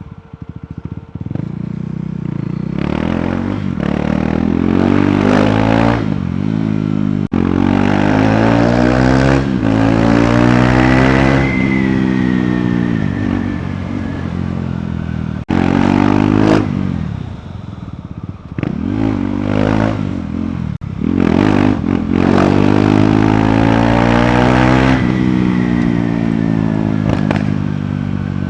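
KTM Duke 390's single-cylinder engine through its stock exhaust, revved hard several times, the pitch climbing with each pull and dropping back as the throttle closes. Sharp crackles and pops come from the exhaust here and there.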